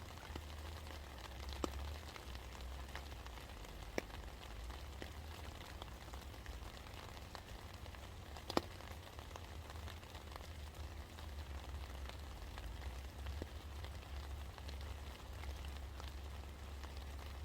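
Steady rain falling, with individual drops ticking on a hard surface and three louder drop strikes, the loudest about two-thirds of the way through. A low steady rumble lies underneath.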